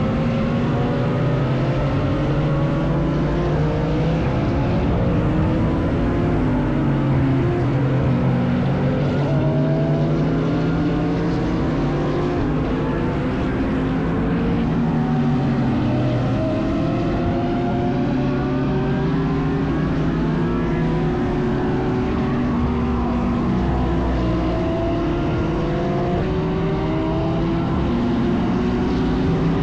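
GT3 race cars at speed, several engines overlapping, each pitch climbing under acceleration and dropping back with the upshifts, in a continuous wall of engine sound.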